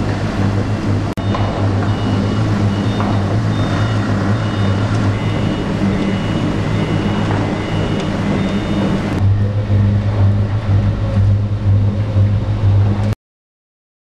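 Aluminum dross processing machinery running: a steady low hum over a noisy mechanical rush. The higher noise thins out about nine seconds in, and the sound cuts off suddenly near the end.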